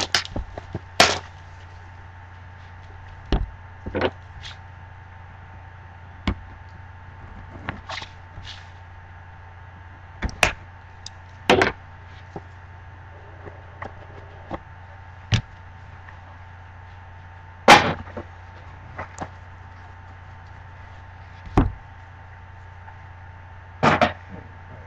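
A cardboard trading card box and its contents handled on a tabletop: irregular knocks, taps and light scrapes as it is opened, moved and set down, the sharpest knock about 18 s in. A steady low electrical hum runs underneath.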